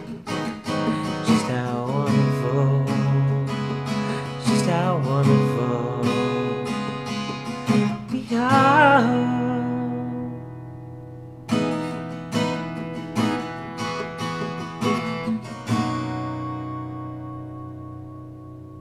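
Acoustic guitar strumming the song's closing chords, with a voice singing a brief wordless, wavering note about halfway through. After a short pause the guitar plays a few more strums, and a final chord rings out and fades away.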